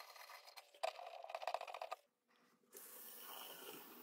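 Light metallic clicks and rattles from a bathroom sink pop-up drain's clevis strap and pivot rod being worked by hand, stopping about halfway. After a short silence, a faint steady hiss.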